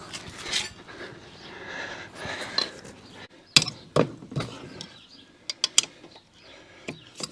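Scattered sharp metallic clicks and clinks of brake shims and caliper parts being handled and fitted to a motorcycle's front brake, with a few louder taps near the middle.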